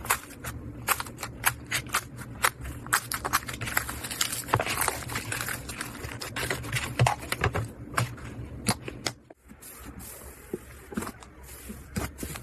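Slime being squeezed and pressed by hand, making a dense run of sharp clicks, pops and crackles. About nine seconds in the sound dips briefly and turns softer, with fewer clicks.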